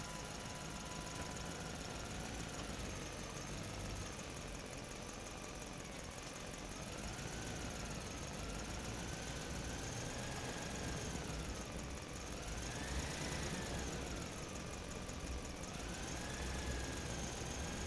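Small electric motor of a homemade mini model tractor running with a thin whine that slowly rises and falls in pitch as its speed changes.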